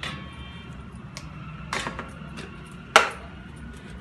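Kitchen containers and a steel mixer jar being handled. There is a clink with a brief metallic ring at the start, a couple of lighter knocks, and one sharp knock about three seconds in.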